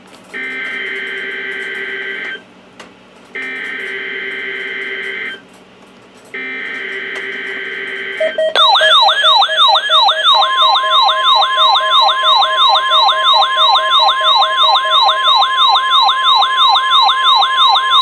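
NOAA weather radio receiving a Required Weekly Test: three identical two-second bursts of buzzy SAME header data tones, a second apart, then the radio's alert sounds, a louder siren of rapid rising sweeps about three a second, joined shortly after by a steady beep tone.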